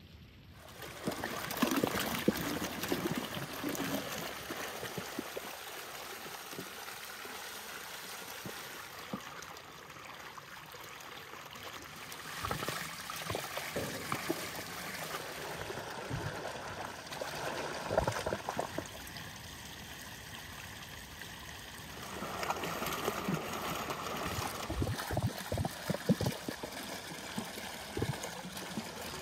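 Water splashing and running over fresh cucumbers as they are washed on a metal table, with short knocks of the vegetables being handled.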